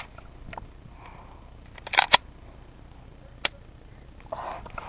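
Airsoft gunfire: sharp single cracks, a quick burst of about three shots around two seconds in and one more shot about a second later. A noisy rustle of movement comes in near the end.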